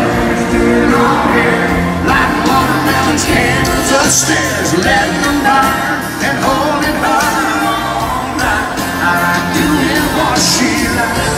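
Live country band music with singing over a stadium PA, recorded from within the crowd, with some shouts from the audience.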